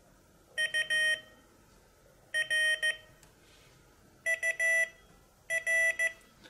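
Morse code beeps from a Morserino-32 Morse trainer's speaker: four short groups of dits and dahs with quiet gaps between them. The last two groups are a touch higher in pitch than the first two.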